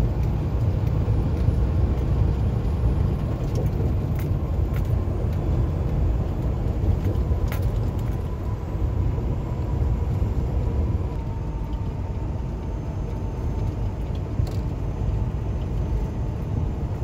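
Peterbilt 579 semi-truck cruising at highway speed, heard from inside the cab: a steady low engine and road rumble, with a few faint clicks and rattles.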